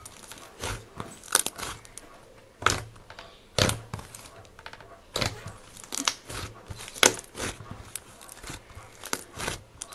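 Clay slime being kneaded, squeezed and pulled apart by hand: irregular sticky clicks, pops and soft tearing, with a few much sharper pops scattered through.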